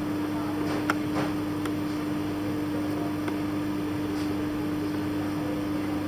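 Steady machine hum with a constant low tone, and a few faint clicks over it.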